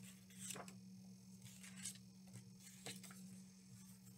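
Near silence with faint paper rustles as a picture book is opened and its pages turned: a few soft swishes, over a low steady hum.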